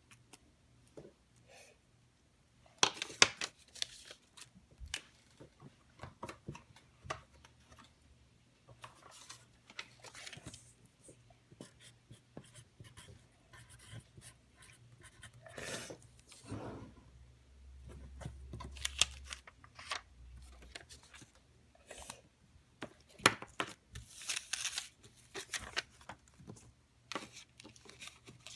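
Hands squishing, stretching and poking slime: irregular sticky clicks and crackly pops in bursts, loudest about three seconds in and again near twenty-three seconds.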